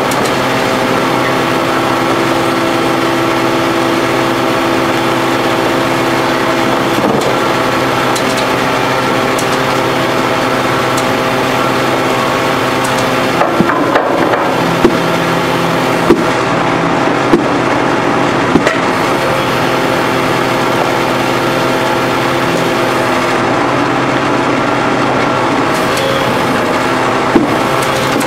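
Hydraulic pile extractor working on a steel H-beam pile, its hydraulic power pack running with a steady drone. Several sharp metallic knocks come in the middle and one more near the end.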